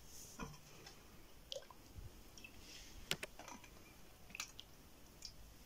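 Faint clinks of a steel ladle against a metal pot and a steel plate as dal is ladled out, with a soft squish and drip of the runny dal. About five light ticks, the sharpest about three seconds in.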